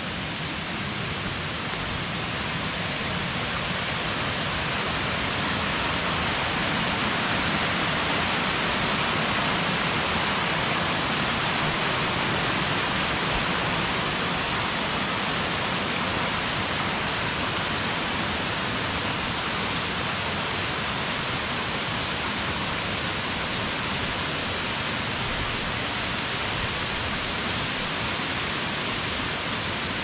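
Waterfall rushing steadily: a dense, even wash of falling water that grows slightly louder over the first several seconds, then holds.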